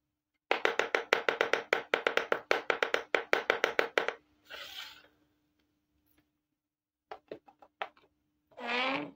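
Rapid tapping on small hard plastic toy kitchen pieces, about eight sharp taps a second for three and a half seconds, followed by a brief scrape, a few light clicks as toys are set down, and a short squeak near the end.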